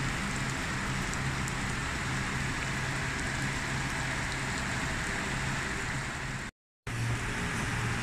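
Heavy rain pouring onto a waterlogged lawn and puddle, a steady hiss with a low hum underneath. The sound cuts out for a moment about six and a half seconds in.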